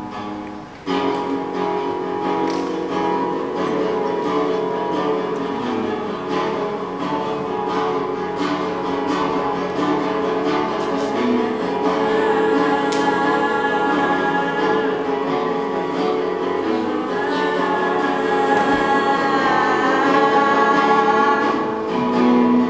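Live song in a theatre: several voices singing long held notes together over acoustic guitar accompaniment.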